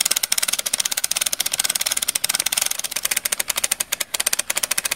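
Film projector running: a rapid, even clatter of mechanical clicks from the film-advance mechanism.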